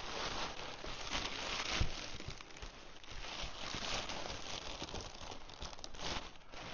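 Thin plastic packaging bag crinkling and rustling as it is handled and pulled, with a soft knock about two seconds in.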